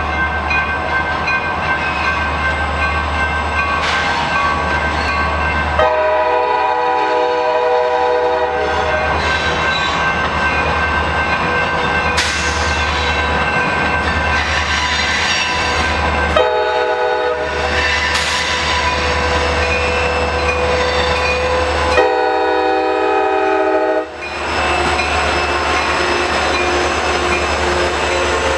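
Diesel locomotive air horn, on the lead CSX SD40-2, blowing for a grade crossing: a long blast about six seconds in, a shorter one about sixteen seconds in, and another about twenty-two seconds in. Under the horn the crossing bell rings and the approaching train rumbles steadily, and near the end the locomotive rolls into the crossing.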